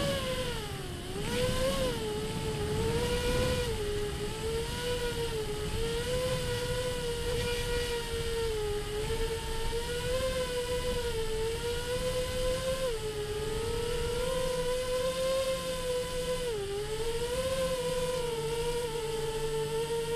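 FPV drone's electric motors and propellers whining in flight, the pitch rising and falling with the throttle and dipping sharply a few times, over a low rumble of wind noise.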